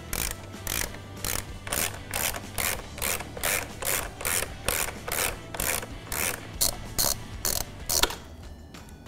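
Ratchet driver with a T40 Torx bit clicking in quick back-and-forth strokes, about two a second, as it backs out a fastener. The strokes stop with a sharp click about eight seconds in.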